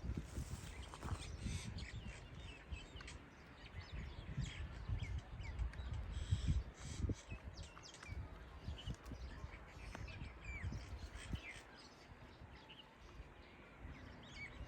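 Birds chirping in many short, repeated calls over a low, uneven rumble.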